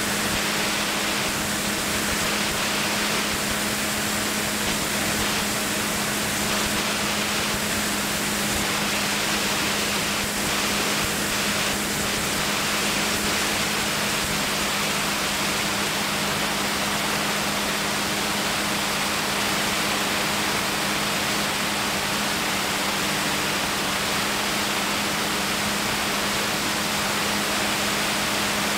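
Light aircraft in flight: a steady engine hum under an even rush of air noise, unchanging throughout.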